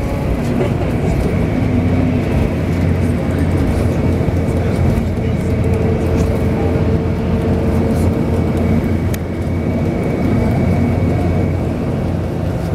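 Steady low engine drone heard from inside a vehicle moving across an airport apron.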